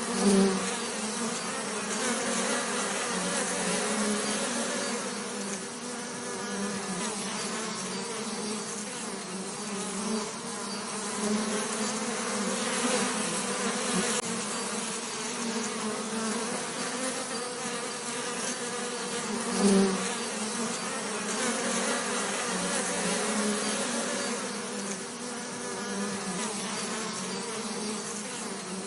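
Bees buzzing in a steady, dense drone, a low hum with many overtones, swelling briefly near the start and again about two-thirds of the way through.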